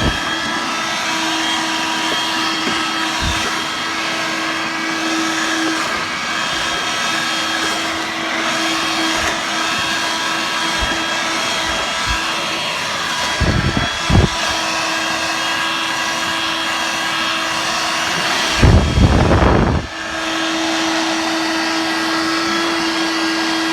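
Dirt Devil Vibe corded bagless vacuum, used in handheld mode, running steadily as it picks up cat litter. A few short knocks and rattles break in, the loudest about nineteen seconds in.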